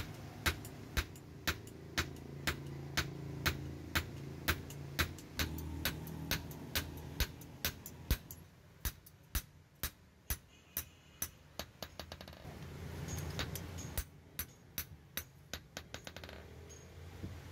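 Hand hammer striking hot steel, a knife blade forged from leaf spring, on a steel block anvil: steady blows about two a second, quickening somewhat after the middle and pausing briefly near the end.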